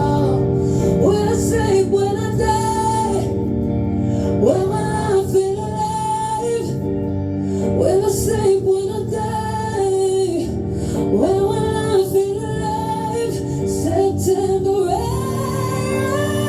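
Live acoustic song: a woman singing a gliding, held melody over sustained acoustic guitar chords.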